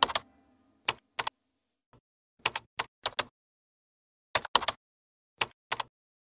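A dozen or so sharp, short clicks, some single and some in quick groups of two or three, irregularly spaced, with dead silence between them.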